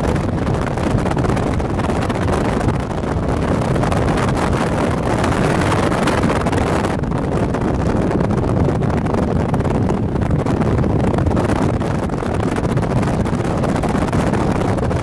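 Strong wind gusting across the microphone: a loud, steady, rushing rumble.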